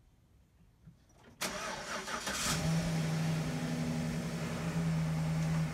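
GMC Sierra pickup truck's engine starting about a second and a half in, then settling into a steady idle.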